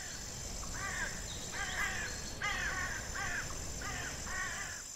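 A bird cawing repeatedly: about seven harsh, crow-like calls evenly spaced at well under a second apart, starting about a second in. Underneath are a steady high insect buzz and a low rumbling noise.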